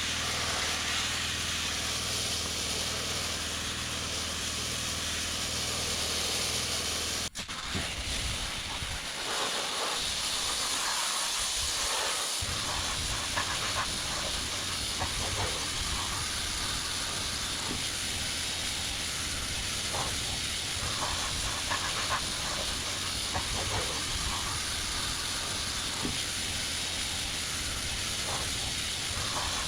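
Sandblaster blasting abrasive grit onto a steel wheel rim: a steady, loud hiss with scattered crackles. For the first seven seconds a steady low hum runs under it; about seven seconds in there is an abrupt break, and the hiss then carries on.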